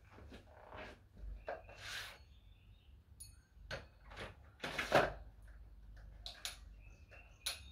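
40 kg adjustable dumbbell lifted out of its stand and set back into the cradle: hard clacks and clunks of the handle and weight plates, the loudest clunk about five seconds in. Soft scuffs of shoes on brick paving come before.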